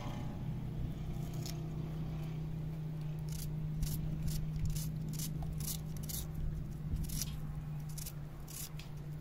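Short, sharp scraping strokes, irregular at first and then about three a second from around three seconds in, over a steady low hum.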